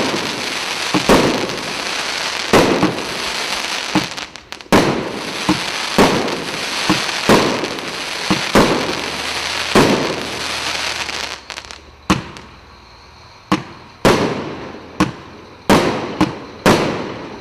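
Zeppelin firework going off: sharp bangs about once a second over a continuous crackling hiss. A little past the middle the crackle dies away, leaving separate bangs, each with a short fading tail.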